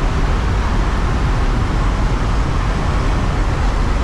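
Loud, steady rush of wind and aircraft engine noise in a skydiving plane's cabin with the jump door open on jump run.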